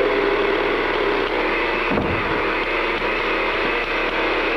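Countertop blender motor running steadily, with a single thump about two seconds in.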